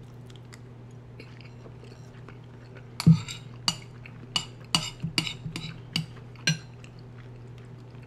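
A spoon clinking and scraping against a bowl of stew in a quick series of about a dozen sharp clicks starting about three seconds in, the first the loudest, over a low steady hum.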